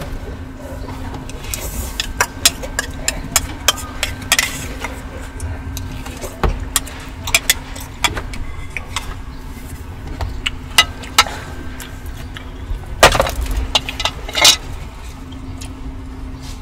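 Eating sounds: utensils clicking and clinking against a takeout noodle container, with a couple of louder scraping or rustling bursts near the end, over the steady low hum inside a car.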